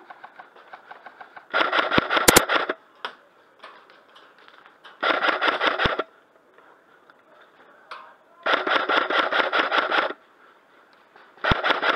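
Airsoft guns firing on full auto: four bursts of rapid clicks, each one to one and a half seconds long, with fainter scattered shots between them.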